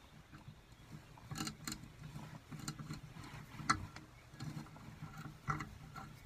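Faint scattered metallic clicks and scrapes from a threaded tool being turned by hand in a drilled hole in a steel bracket, the sharpest click about three and a half seconds in, over a low steady hum.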